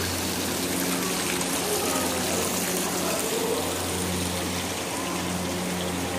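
Steady rush of running water with a low steady hum underneath.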